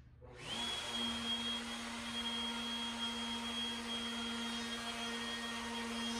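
Electric wood router switched on: the motor spins up with a quick rising whine about half a second in, then runs at a steady high speed.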